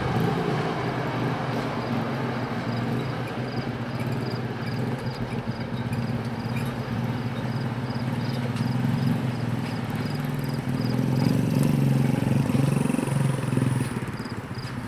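Car engines idling at a level crossing, then cars pulling away and driving over the rails, louder a little after the middle. A high, short chirp repeats about twice a second throughout, pausing for a few seconds before the end.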